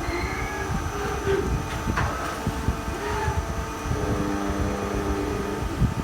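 Steady rumble and hum of running workshop machinery, with held tones that shift in pitch and a few short clicks, the clearest about two seconds in.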